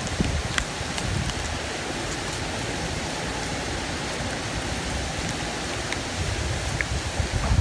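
Hurricane rain and wind in an eyewall: a dense, steady hiss of heavy rain, with wind rumbling on the microphone at the start and again near the end, and a few sharp ticks of drops striking close by.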